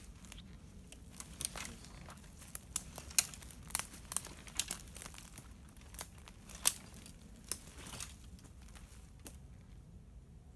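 Footsteps through dry woodland litter: twigs and dead sticks snapping and crackling underfoot in irregular sharp cracks, which thin out after about nine seconds.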